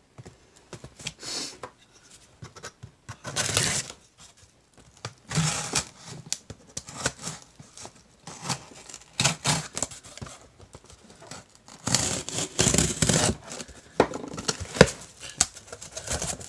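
A cardboard shipping box being opened: packing tape torn off and the flaps pulled open, in irregular bursts of tearing and scraping with sharp clicks between.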